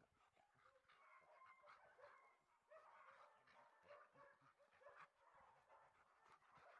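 Faint dog whimpering and yipping from dogs at play: many short, high calls scattered throughout.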